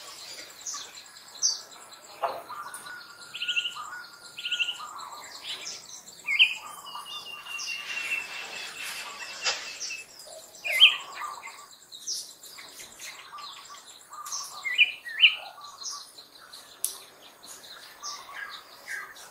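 Wild birds chirping: short high calls scattered throughout, with two long held notes a few seconds in, over a faint steady high insect hum.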